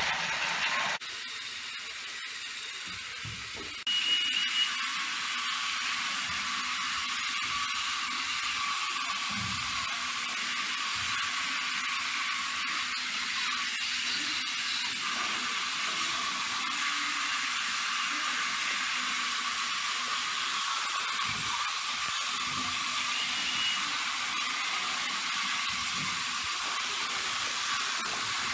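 Motorized Thomas & Friends toy train's small electric motor whirring steadily with a thin high whine as it runs along plastic track.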